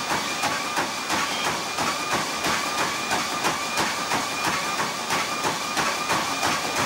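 Running footfalls striking a NordicTrack treadmill's moving belt, about three steps a second, over the treadmill's steady motor whine.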